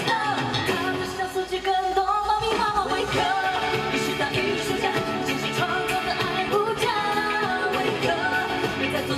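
Pop song with a man singing a melodic line over steady backing music.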